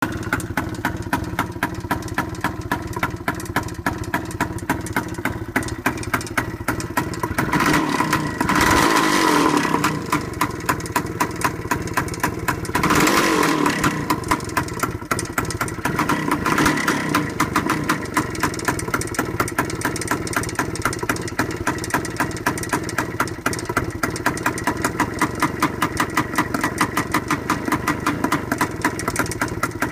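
1978 Suzuki TS185C's single-cylinder two-stroke engine running loud through its stock exhaust with the spark arrestor/silencer missing, idling with a steady rapid beat. It is revved up briefly twice, about eight and thirteen seconds in, and a little again soon after.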